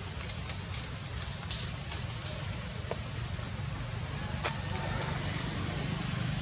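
Steady low rumble and hiss of background noise, with a few faint sharp clicks scattered through it.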